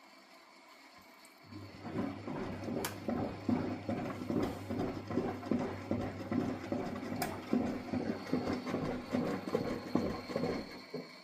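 Miele W423 washing machine drum turning during a wash, its motor humming steadily under an uneven, rhythmic swishing and knocking. It starts about a second and a half in and stops shortly before the end.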